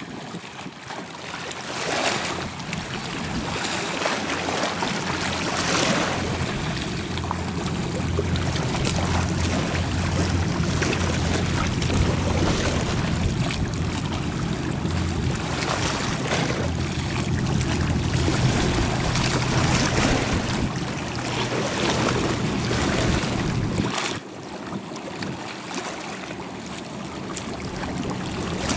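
High-speed passenger ferry running past at speed: a steady low engine drone under the rushing wash of its hull, with wind gusting on the microphone. The drone drops away about 24 seconds in, leaving mostly water and wind noise.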